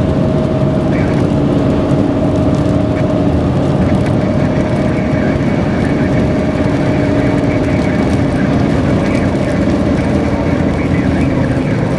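Steady road and engine noise of a vehicle driving at highway speed, heard from inside the cabin, with a steady low hum.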